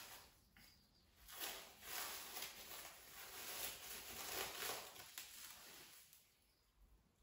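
Plastic cling film being pulled off its roll and handled, rustling and crinkling for about five seconds from about a second in, then stopping.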